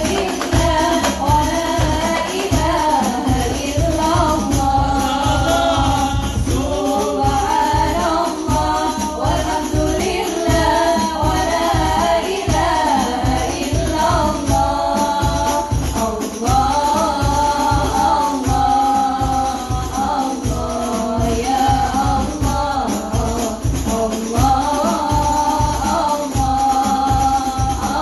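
Sholawat, devotional songs praising the Prophet, sung by a group of voices over a steady beat of frame drums.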